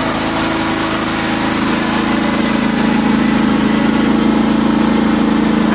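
Riding lawn mower's engine running steadily under way.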